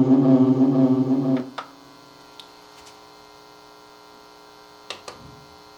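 A held, voice-like pitched tone through the voice-effects mixer cuts off about a second and a half in. A steady electrical mains hum from the mixer's output remains, with a few faint clicks.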